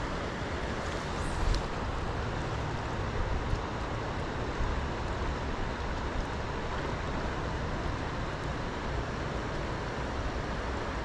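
Steady rush of a shallow creek riffle flowing over shale ledges, with one brief sharp knock about a second and a half in.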